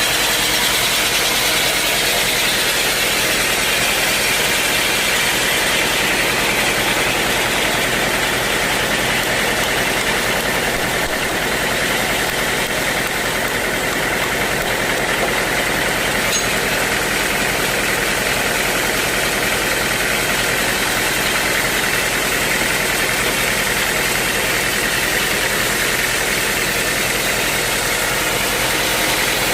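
Sawmill running steadily and sawing a teak log, a loud continuous machine noise that holds level throughout.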